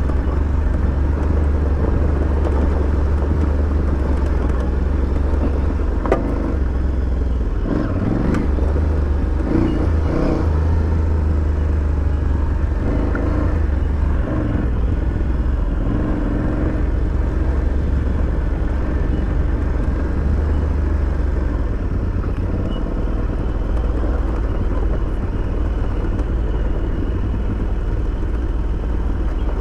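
Aprilia Tuareg 660's parallel-twin engine running steadily while riding a dirt track, with a few sharp knocks and rattles about six to ten seconds in.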